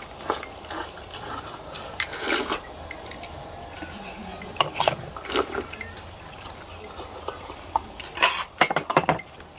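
Several people eating pho at a table: spoons and chopsticks clinking against bowls amid slurping of noodles and broth, with a cluster of sharper clinks near the end.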